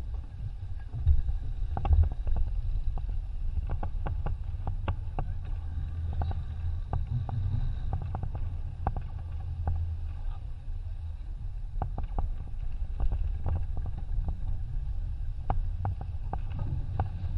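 Wind rumbling on the microphone and water rushing past the hull of a sailing yacht moving through choppy sea, with many short clicks and knocks scattered throughout.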